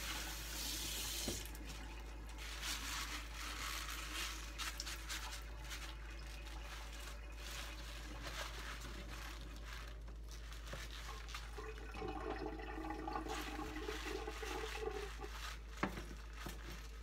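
Kitchen tap water running, which shuts off about a second and a half in. It is followed by soft rustles and light knocks of kale leaves being handled and stacked on a plastic cutting board.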